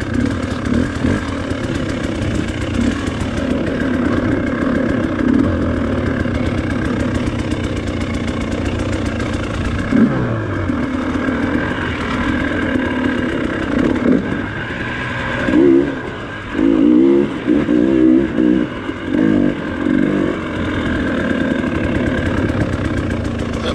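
Dirt bike engine running at low revs on a steep downhill trail, with a pitch dip about ten seconds in and a run of short, sharp throttle blips about two-thirds of the way through.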